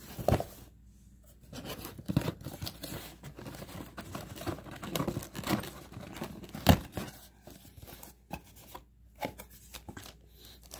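Cardboard product box being opened by hand: the cardboard and its packaging scrape and rustle, with irregular knocks and one sharp tap about two-thirds of the way through.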